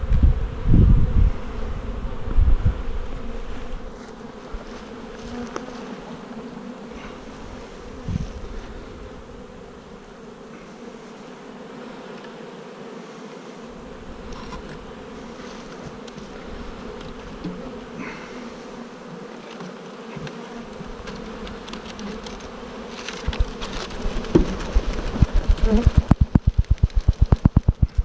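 A mass of honeybees buzzing steadily, with a few loud knocks in the first seconds. Near the end comes a fast run of thumps as the bee package box is knocked to shake the bees out into the hive.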